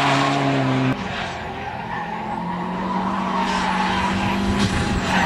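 Rally car engines at full throttle on a tarmac stage, with tyres skidding. About a second in the sound cuts abruptly from one car passing close to another car coming through a corner, its engine note held steady.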